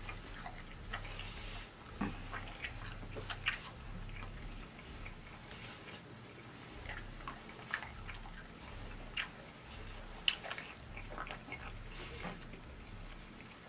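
A person chewing food with the mouth closed: short wet mouth clicks and lip smacks at an irregular pace.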